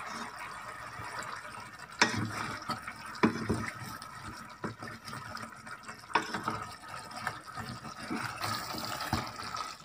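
Wooden spoon stirring lamb pieces in a simmering honey-and-sugar sauce in a stainless-steel pot: steady bubbling and sizzling, with a handful of sharp knocks as the spoon hits the pot. The stirring keeps the sweet sauce from sticking to the bottom.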